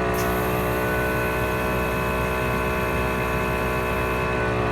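ARB CKMA12 12-volt on-board air compressor running steadily under load, pumping an aired-down truck tire up and nearly at 35 psi.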